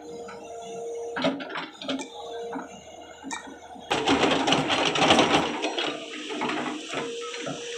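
Tata Hitachi EX200 hydraulic excavator running with a steady tone, its steel bucket scraping and digging through soil in a trench. The digging is loudest for about a second and a half, beginning about four seconds in.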